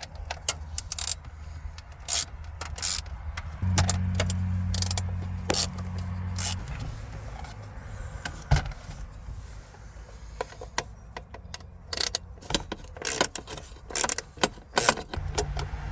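Phillips screws being taken out of a car's dash stereo mount: a string of sharp metal clicks and rattles from the screwdriver and screws. Under them is a steady low hum, which gets louder for about three seconds near the start.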